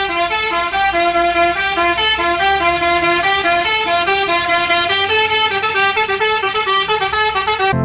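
Multi-tone 'telolet' bus horn playing a fast melody of short stepped notes, about four notes a second, starting suddenly and cutting off just before the end.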